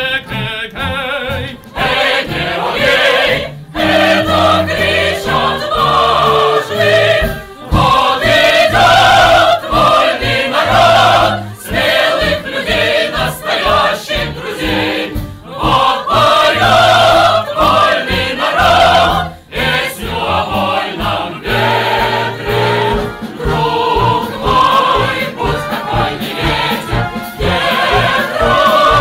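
Choir singing the finale of an operetta over instrumental accompaniment, with sustained low bass notes and a regular pulse underneath.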